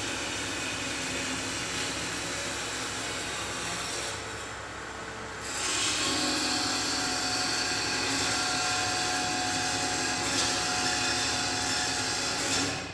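Bomar Ergonomic 320.250 DG metal-cutting bandsaw running with a steady hiss. The noise dips briefly about four seconds in, comes back louder from about six seconds, and cuts off suddenly near the end.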